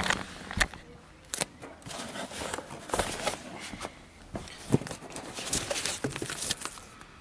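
Packaging being handled: a cardboard box, foam inserts and a plastic bag rustling and scraping as the speaker is lifted out, with scattered knocks.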